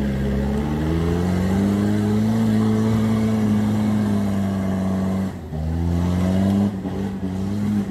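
Four-wheel-drive SUV's engine revving hard under load as it climbs a steep forest trail. Its pitch rises over the first couple of seconds and holds high, drops off suddenly about five seconds in, then picks up again.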